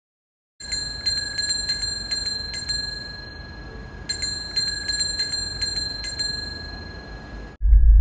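Bicycle bell rung in two quick runs of dings, about four a second, with its ringing tone held in between. It cuts off suddenly just before the end, where a loud low rumble begins: the same bell filtered to sound as it would in Mars's thin atmosphere.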